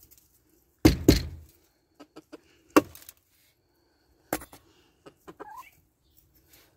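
A few sharp knocks and thumps, two close together about a second in and others near three and four and a half seconds, with small clicks between, and a brief rising chicken call about five and a half seconds in.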